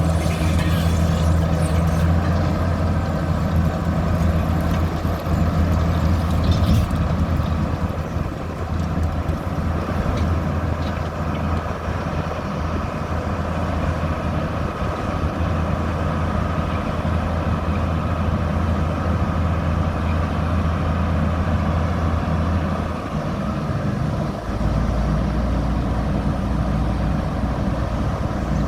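Heavy diesel engine of road-construction machinery running steadily; about 23 seconds in its note drops to a lower, deeper hum.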